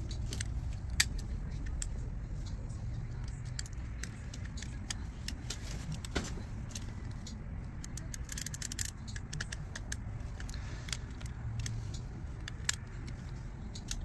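Scattered small clicks and taps of plastic parts being handled and fitted together as a BMW iDrive controller is reassembled, over a steady low background rumble.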